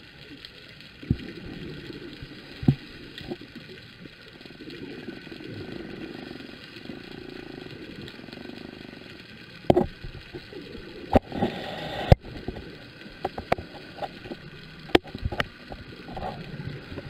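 Underwater bubbling from divers' exhaled breath, coming in long bursts, with sharp clicks and knocks scattered through that grow more frequent in the second half.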